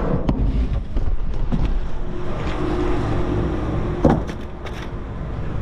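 A cardboard box and trash being handled at a dumpster, with scraping and a few knocks. The loudest is a sharp knock about four seconds in. A steady low rumble runs underneath.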